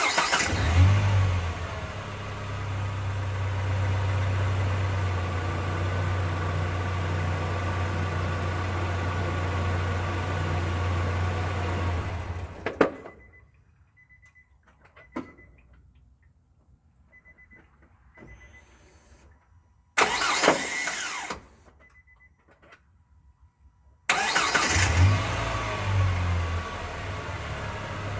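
Car engine starting and idling, then switched off about halfway, with a sharp loud clack as it stops; this clack at shutdown is the unexplained noise that has puzzled mechanics. Faint beeps and a light click follow in the quiet, then a short burst of noise, and the engine is started again and idles.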